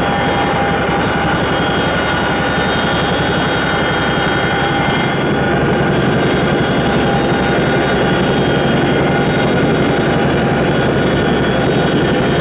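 Cabin noise inside a CH-47J Chinook tandem-rotor helicopter in flight: a loud, steady din of rotors, turbine engines and gearboxes, with a rapid low thrum and several high steady whining tones over it. It gets slightly louder about five seconds in.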